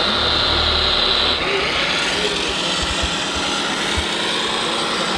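Radio-controlled construction models running, with a dense mechanical whir and a high steady whine that stops about a second and a half in; a few low knocks follow.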